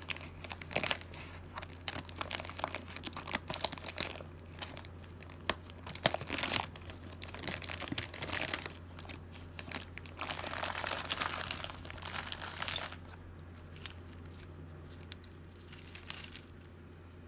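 Plastic bag of mixed jewelry crinkling and being torn open, with many sharp clicks as the pieces shift and knock together. It turns quieter about two-thirds of the way through.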